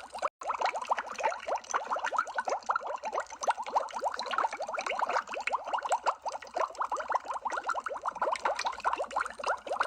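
Continuous underwater bubbling: a dense stream of small bubbles, each a short rising blip. The sound drops out for a split second just after the start, then carries on unchanged.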